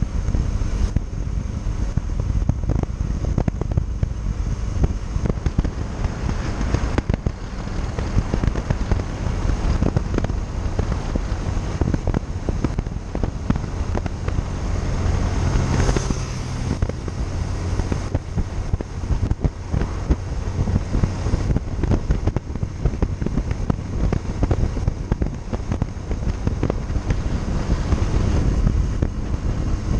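Wind buffeting the microphone over the steady running of a Yamaha Factor 150 motorcycle on the move. About halfway through there is a brief, louder swell.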